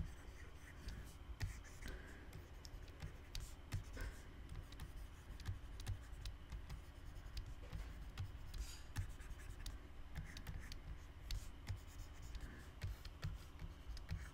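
Stylus pen on a graphics tablet, tapping and scratching in short, irregular drawing strokes, with light low knocks of the pen against the tablet.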